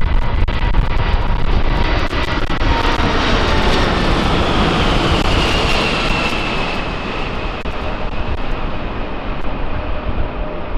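Boeing 747-400 freighter's four jet engines at takeoff power, a loud rush with a high whine that drops slightly in pitch as it passes. It eases off a little in the second half.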